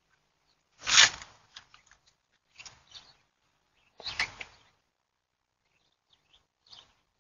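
A few short rustling, scuffing noises from a person handling a dog's leash and harness close to the microphone. The loudest is about a second in, with others near three and four seconds in and a faint one near the end.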